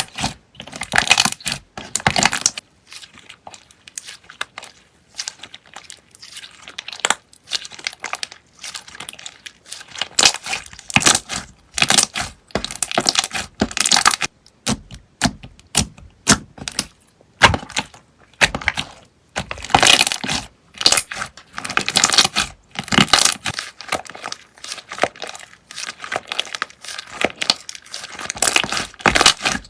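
Slime being squeezed and pressed by hand close to the microphone, giving irregular runs of crackling and popping, softer for a few seconds early on and then denser.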